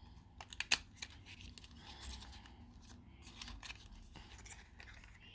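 Lip gloss packaging being opened by hand: a few sharp clicks, the loudest just under a second in, then light rustling and tearing of wrapping with a few more small clicks.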